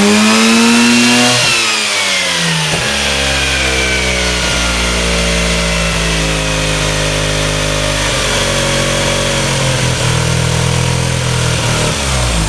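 Car engine revving: the pitch climbs in the first second and a half and falls back, then the engine is held at a steady raised speed and drops again near the end.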